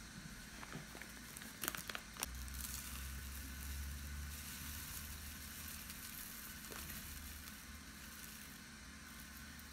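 Loose green tea leaves shaken from a crinkly foil-lined bag into a wire-mesh strainer: a dry rustling hiss, with a few sharp crinkles of the bag at about two seconds in.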